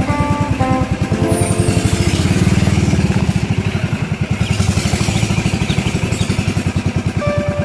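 An engine running with an even, fast low pulse, a little louder about two to three seconds in. Faint music near the start and the end.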